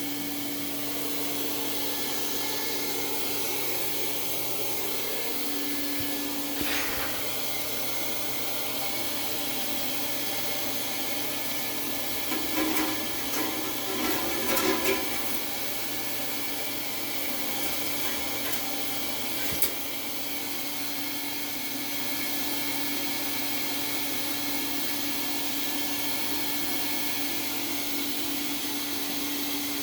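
Riello oil burner on a Kerr Eclipse furnace firing and running steadily: an even whir of rushing air with a steady hum. Brief clattering around the middle, and a single click twice.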